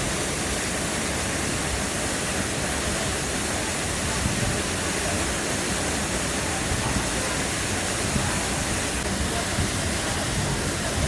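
Waterfall rushing as a steady, even roar of falling water.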